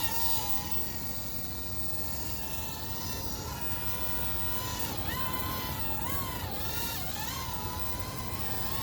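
Small toy quadcopter drone hovering close by, its tiny motors and propellers giving a steady high whine that dips and rises in pitch several times as the throttle is adjusted.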